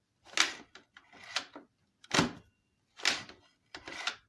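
A series of short knocks and scrapes, about one a second, five in all, from an upright vacuum's hard plastic parts being handled.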